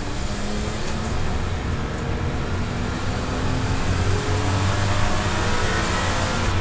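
BMW 325i straight-six under full acceleration, heard from inside the cabin, its engine note rising steadily as the revs climb from about 3,800 to about 6,600 rpm in one gear, over a steady tyre and road noise.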